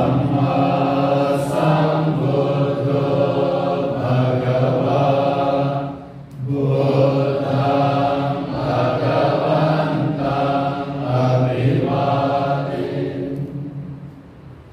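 Buddhist monks chanting, recited on a low, level pitch, with a short break about six seconds in and the chant fading out near the end.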